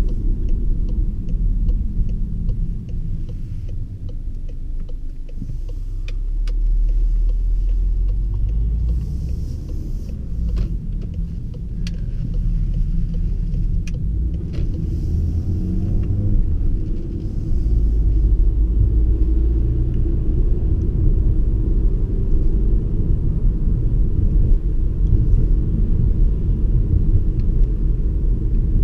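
Cabin sound of a 2016 VW Passat B8's 2.0 TSI turbocharged four-cylinder, fitted with a VWR600 intake, driving: a steady low rumble of engine and road noise that eases a few seconds in, then grows louder around seven seconds and again past halfway as the car pulls away. A few sharp clicks come through in the middle.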